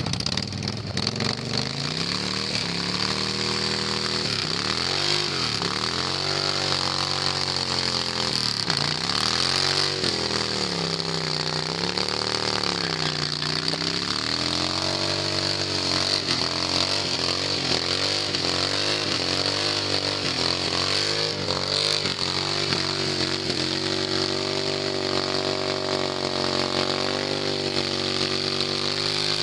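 Motorcycle engine revved hard during a rear-tire burnout, rising and falling in a series of revs about every couple of seconds, then quicker wobbles, then held at a steady high rev near the end. A steady high hiss from the spinning, smoking rear tire runs beneath it.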